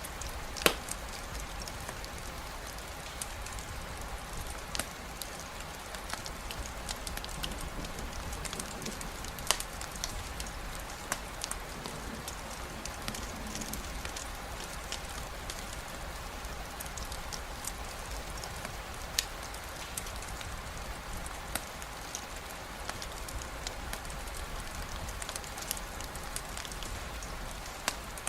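Steady rain falling, with scattered sharp clicks and pops every second or two, the loudest less than a second in.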